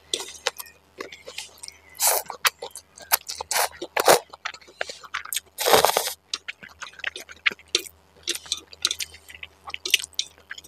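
Close-up mouth sounds of eating spicy instant noodles: chewing with wet smacks and clicks, and several noisy slurps or breaths. The longest and loudest comes just before six seconds in.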